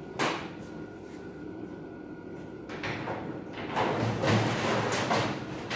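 Steel shelf being fitted into a Kobalt sheet-metal garage cabinet. There is a sharp clank just after the start, then about three seconds of metal scraping and clanking as the shelf is worked into place.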